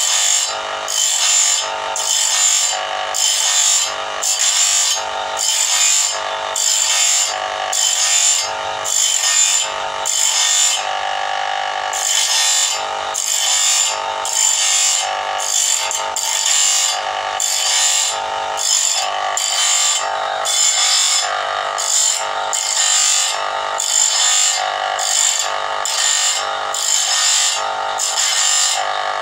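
Motor-driven abrasive grinding wheel sharpening a sawmill band saw blade, grinding one tooth after another in even strokes, about two a second. Around the middle the strokes stop for a moment and only the spinning wheel and motor hum are heard.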